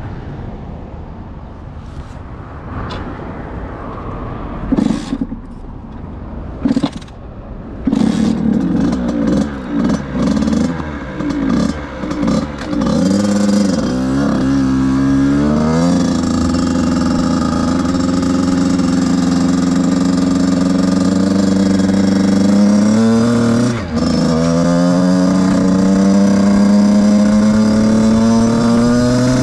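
Beta RR 50 two-stroke enduro motorcycle engine heard from on board while riding. After a quieter start with a couple of sharp knocks, it is revved in short bursts, then pulls away with rising pitch into a steady high run. It dips briefly near the end and climbs again.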